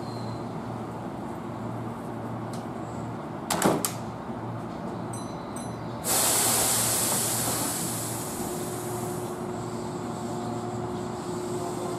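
Keihan electric train standing at the platform: two sharp knocks about three and a half seconds in, then a sudden loud hiss of compressed air about six seconds in that fades over a few seconds. A steady motor tone sets in near the end as the train gets ready to pull away.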